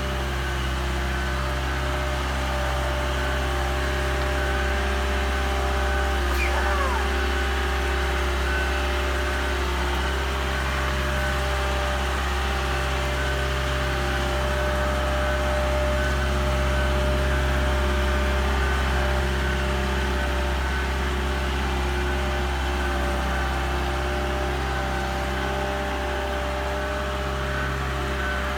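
Engine of a mobile boat hoist (travel lift) running steadily as the lift carries a sailboat in its slings, a low hum with a faint high tone pulsing regularly above it.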